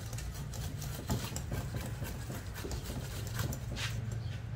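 A string of irregular light clicks and taps over a steady low hum.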